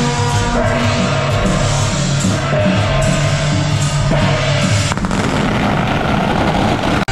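A procession band plays loud music with brass horns and percussion, over a steady low rhythmic beat.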